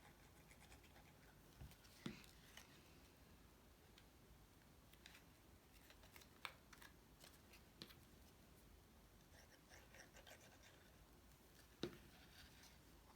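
Quiet handling of cardstock: faint paper rustles and a few soft taps and clicks as paper panels are pressed and glued on, the loudest taps about 2 s, 6.5 s and 12 s in.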